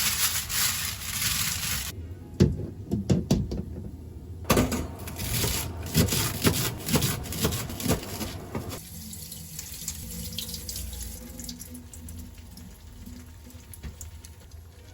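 A kitchen tap runs into a sink twice, with clinks and knocks of things handled under the water. The water stops about nine seconds in, leaving only faint sounds.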